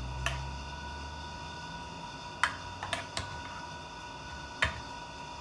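Light clicks and taps of a utensil against a baking pan as cream is spread over cookies, about five in all, the sharpest about two and a half seconds in and near the end, over a steady faint hum.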